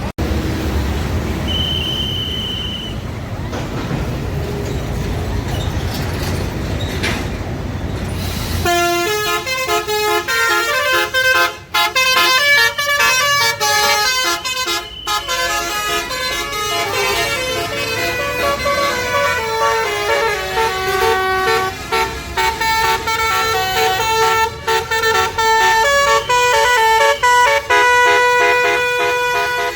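Low road and engine rumble, then about nine seconds in a tour bus's basuri telolet horn starts up and plays a tune of stepped, multi-note horn blasts. It keeps playing with a few short breaks.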